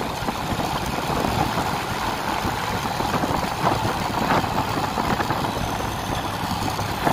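A vehicle's engine running steadily on the road, with even road noise and no sharp events.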